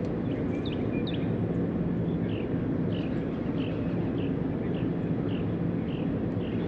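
A steady low mechanical hum under outdoor ambience, with a small bird giving short, high chirps about twice a second.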